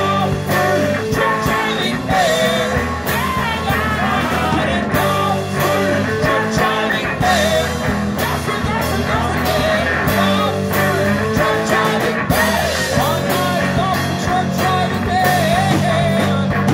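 Rock band playing live: two electric guitars, bass guitar and drum kit, with a sung vocal over the top.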